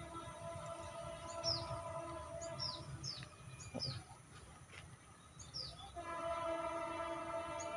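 Birds chirping in short, falling calls, repeated many times, over a low outdoor rumble. Near a railway line, a steady tone of several pitches hums faintly and swells clearly louder about six seconds in.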